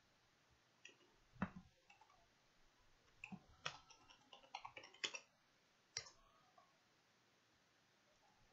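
Computer keyboard typing: irregular, sharp key clicks in short runs for about five seconds, faint against a quiet background.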